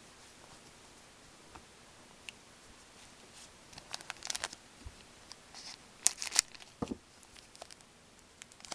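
Hockey trading cards being handled and sorted: quiet, scattered rustles and flicks of card stock, with a cluster of sharp crinkly snaps about four seconds in and the loudest pair about six seconds in.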